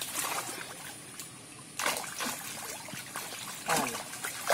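Fish thrashing and splashing in shallow muddy water crowded inside a fishing net, over a steady trickle of water. The splashing comes in surges, the loudest about two seconds in and again near the end.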